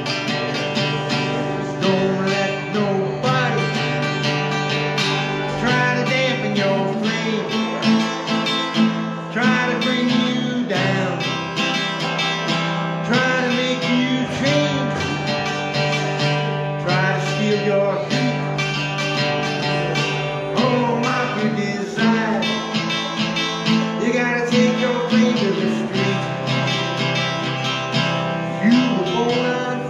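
Solo archtop hollow-body guitar playing an instrumental break, a steady run of picked chords over a bass note that shifts with each chord change.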